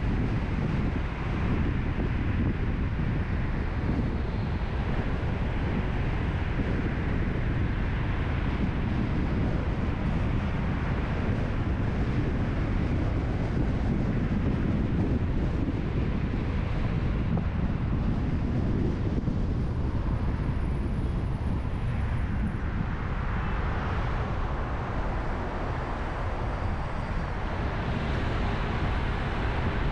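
Steady low rumble of a car driving, with road and wind noise. A brighter hiss comes up over the last several seconds.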